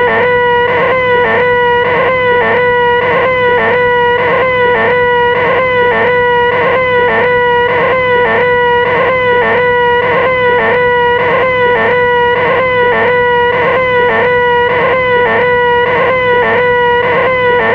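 A high-pitched, voice-like "eeeh" held on one steady note without a break: the "most annoying sound in the world" gag. A small regular wobble comes about twice a second, like a short clip looped over and over.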